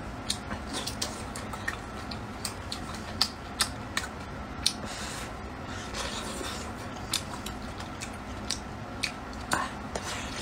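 A person eating boiled dumplings in chili-oil soup: chewing and slurping, with many short wet smacks and clicks scattered throughout.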